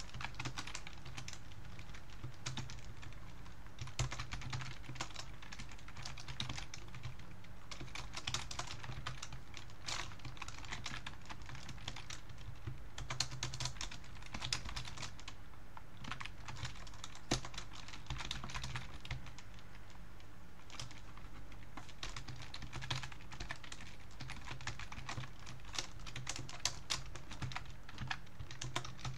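Typing on a computer keyboard in irregular flurries of key clicks.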